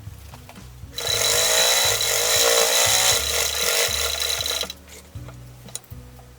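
Singer Model 66 sewing machine running fast as it stitches a seam, starting about a second in and stopping after nearly four seconds.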